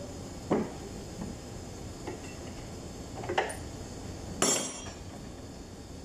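Three sharp metallic clanks, about half a second in, near the middle and again a second later, the last ringing briefly: tools and loose parts knocking against the metal of a stripped-down forklift engine during teardown.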